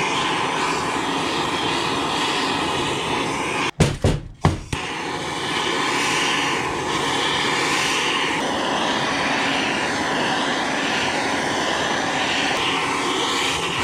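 Handheld Bernzomatic torch burning with a steady rush of flame, heating the aluminum engine case around a bearing so the case expands and frees the bearing. The sound drops out briefly about four seconds in, with a couple of knocks, then carries on steadily.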